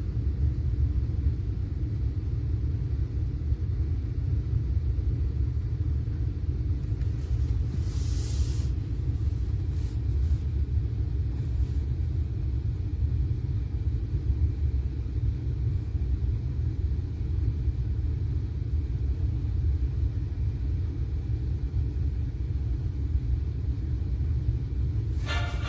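Steady low rumble with no change in level, with music starting right at the end.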